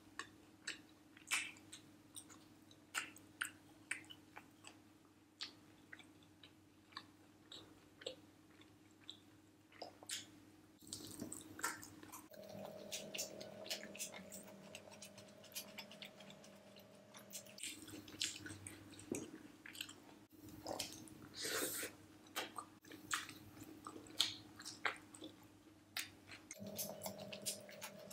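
Close-miked eating sounds: wet chewing, lip smacks and small bites as roasted chicken, biryani and raw onion are eaten by hand. The smacks come quietly and irregularly, a few a second, over a faint steady hum.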